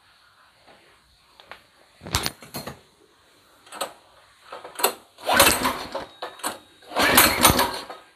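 Recoil-starter pulls on a new 200 cc small single-cylinder engine: several short clattering bursts, then two longer, louder pulls about five and seven seconds in, without the engine catching. This is the first start of the engine.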